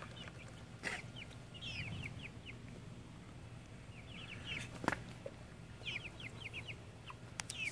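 Young chickens (Australorp and Cornish Cross chicks) peeping: short, high, falling peeps in quick little runs, coming and going. There are two short knocks, about a second in and near five seconds in.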